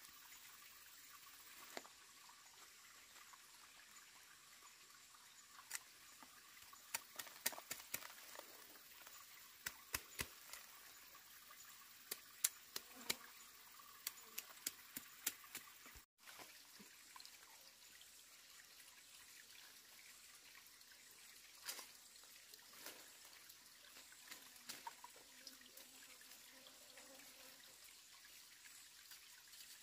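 Machete blade chopping and knocking at a clump of freshly dug roots: a run of sharp, light knocks from about six seconds in, with a few more later, over a faint steady hiss.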